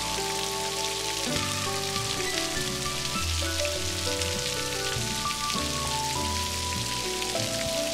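Steady rain falling, mixed with soft, slow instrumental music whose held notes change every second or so.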